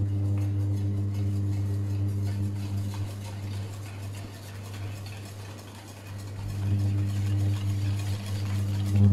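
Wire whisk stirring a thick cream cheese mixture in a stainless steel bowl over a double boiler, over a steady low hum that fades for a few seconds mid-way and then returns.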